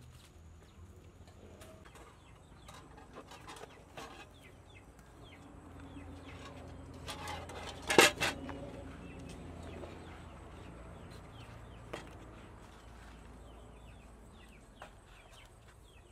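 Chickens clucking, with light knocks and rustles from a wicker basket and paper-pulp egg trays being handled, and one sharp knock about halfway through.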